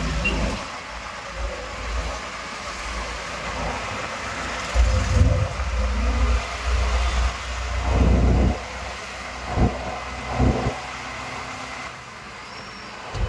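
Road traffic and vehicle noise heard from inside an open rickshaw, with low rumbling surges about five and eight seconds in and two shorter ones near nine and a half and ten and a half seconds.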